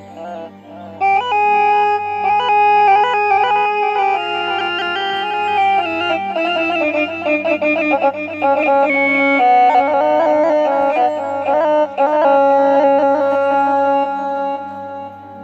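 Korg Triton keyboard playing a rababa (rebab) patch: a slow, ornamented 'ataba/mawwal-style melody of held notes over a steady low drone, coming in about a second in.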